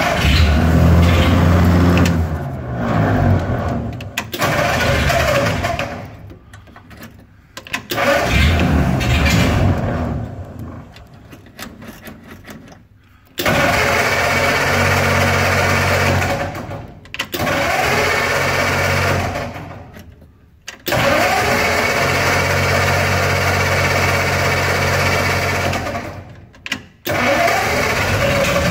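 1936 Ford 21-stud flathead V8 engine heard in several separate runs, each coming in suddenly, running steadily for a few seconds and dying away.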